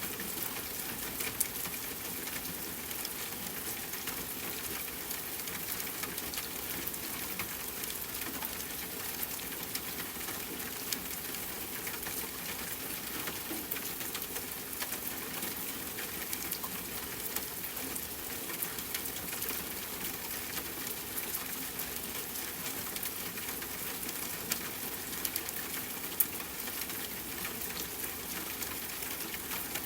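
Steady rainfall mixed with a crackling wood fire: an even hiss dotted with small crackles and a few sharper pops, the loudest near the end.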